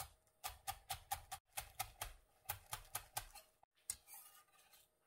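Kitchen knife finely slicing green onions on an end-grain wooden cutting board: quick, even taps of the blade on the wood, about five a second, stopping about three and a half seconds in.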